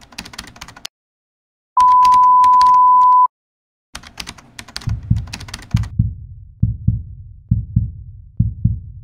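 Sound effects: rapid keyboard typing clicks, a loud steady beep lasting about a second and a half about two seconds in, more typing, then a heartbeat effect, paired low thumps (lub-dub) about once a second. The beep is the loudest thing.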